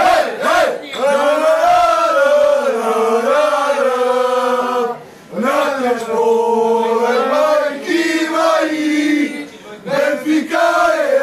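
A group of men singing a chant together in unison, loud sustained phrases with a short break about five seconds in and another near the end.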